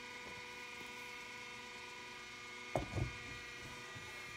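Faint steady hum of an electric cup turner's motor, with a single knock about three seconds in as a tumbler is handled at the turner.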